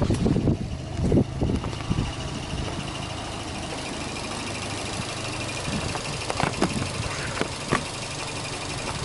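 Subaru Impreza S-GT's 2.0-litre turbocharged flat-four (boxer) engine idling steadily, heard through the open bonnet, with a light, fast ticking over the hum. A few thumps of handling in the first couple of seconds and a few short clicks later on.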